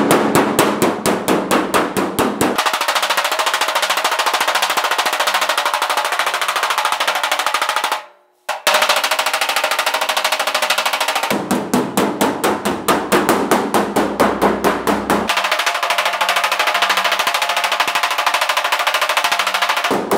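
Body slapper rapidly and evenly striking the sheet-steel door skin of a 1967 Pontiac GTO, many blows a second, knocking down high spots while the panel is pushed up from behind. The strikes stop briefly about eight seconds in, then carry on.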